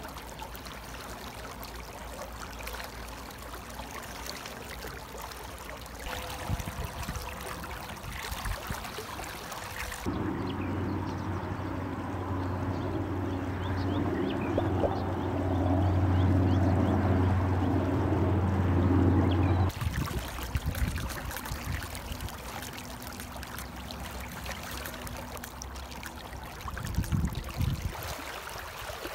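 A shallow river rapid flowing steadily, a rushing, trickling water sound. For about ten seconds in the middle, a louder steady low hum sits under the water.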